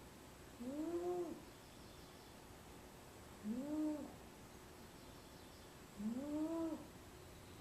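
Sleeping cat snoring: three pitched snores a little under three seconds apart, each about two-thirds of a second long, its pitch rising and then falling.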